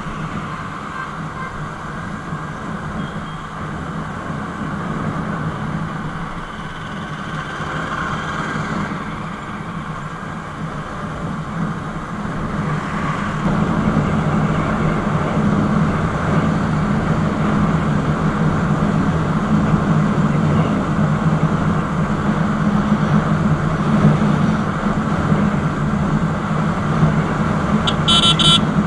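Yamaha motorcycle engine running steadily under way, mixed with rushing wind and road noise, growing louder about halfway through. A short high-pitched sound comes near the end.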